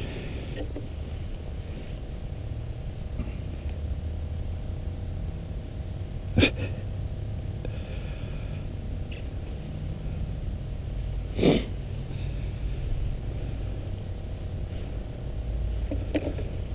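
A steady low rumble with two sharp knocks, one about six seconds in and a longer, louder one about eleven seconds in.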